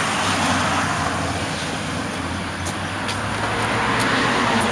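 Steady road traffic noise, with a few faint short ticks in the second half.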